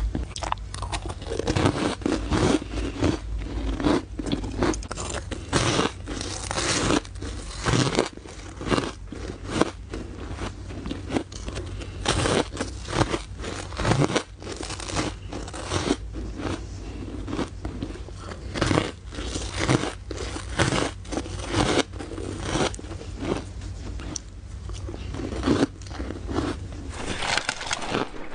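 Close-miked crunching of ice being bitten and chewed: sharp, irregular crunches several times a second throughout, over a steady low hum.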